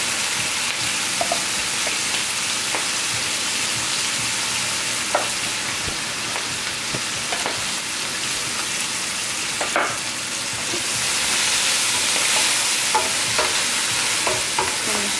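Bok choy and shiitake mushrooms sizzling in hot oil and sauce in a wok while being stirred, with a few light knocks. The sizzle grows a little louder about two-thirds of the way through.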